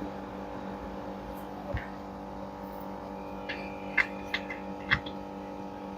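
A few sharp clicks and taps of hand tools and screws on the washing machine's gearbox mounting, in small groups near the middle and end, over a steady electrical hum.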